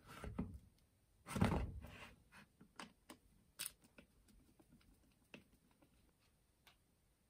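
Handling noise as a cordless drill's body is picked up, turned and set against a metal bench, loudest about a second and a half in. This is followed by scattered small clicks and ticks of a screwdriver unscrewing self-tapping screws from the drill's housing.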